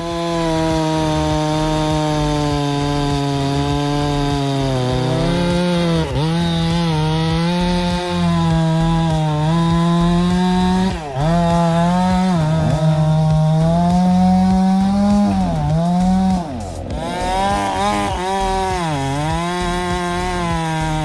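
A two-stroke chainsaw running at full throttle, cutting into the base of a large tree trunk. Its engine pitch dips briefly several times as the chain bites into the wood, then recovers.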